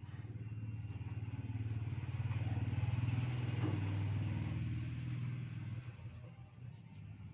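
A motor vehicle's engine passing by, growing louder to a peak about three seconds in and fading away by about six seconds.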